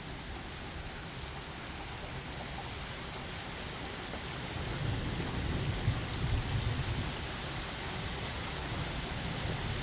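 Heavy rain falling steadily, with a low rumble of thunder swelling in about halfway through and fading near the end.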